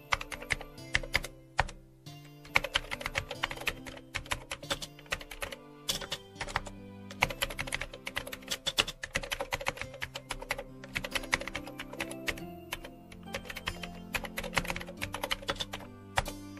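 Computer keyboard typing, rapid clicks in runs with short pauses, over soft background music with held notes.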